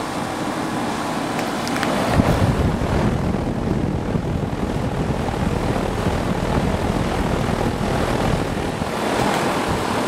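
Carrier TECH2000 2-ton air-conditioner condensing unit with a Copeland scroll compressor, running in cooling mode: a steady rush of air from its outdoor fan, heard close over the top discharge grille. The low rumble gets stronger about two seconds in.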